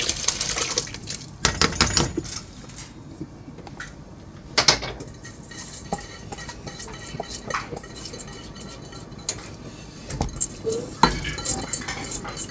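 Rice poured and scraped from a stainless steel bowl into a stainless pot of liquid: a rush of grains at the start, then scattered metal clinks and knocks of the bowl against the pot rim, coming thicker near the end as the last grains are tapped out.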